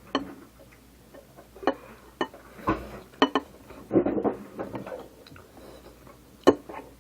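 Eating utensil knocking and clicking against a dish while boiled eggs are cut up, a dozen or so sharp irregular clicks with one louder knock near the end.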